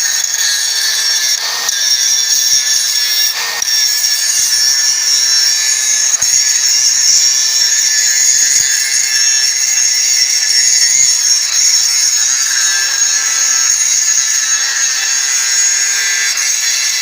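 DeWalt DCG414 cordless angle grinder grinding down weld seams: a loud, steady, high-pitched grinding of the disc on metal over the motor's whine.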